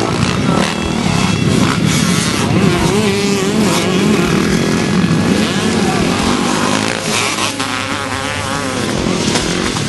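Motocross dirt bike engines revving, their pitch rising and falling as riders ride over a jump on the dirt track.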